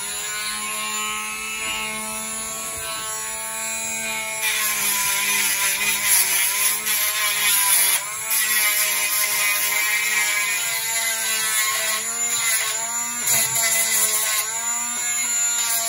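Cordless rotary tool with a small sanding drum running at a steady whine, sanding the enamel off the ends of enamelled copper wire on a toroid winding. From about four seconds in the grinding grows louder and the motor's pitch sags and wavers under load as the drum is pressed on the wire, with a brief let-up about halfway through.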